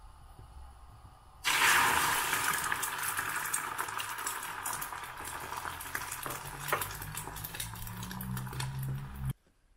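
Food sizzling and crackling in a hot pan, with stirring. It starts abruptly about a second and a half in, with a low hum joining near the end, and cuts off suddenly.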